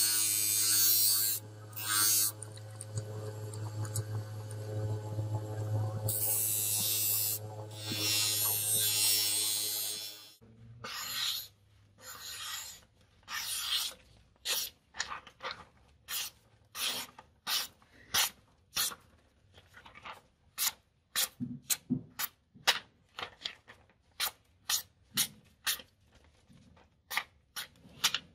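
A DeWalt bench grinder runs with a steady hum while a knife blade is pressed to the wheel in hissing bursts of grinding to sharpen it. About ten seconds in this stops abruptly, and the sharpened knife slices through sheets of paper in repeated short strokes, testing its edge; the strokes come faster toward the end.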